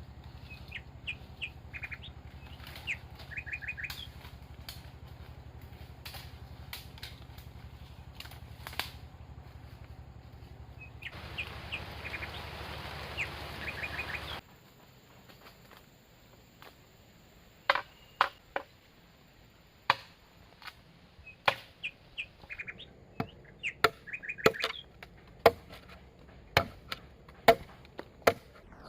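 Short bird chirps over a steady low hum, which stops abruptly halfway through. Then bamboo is chopped with sharp, loud strikes about once a second, some in quick pairs.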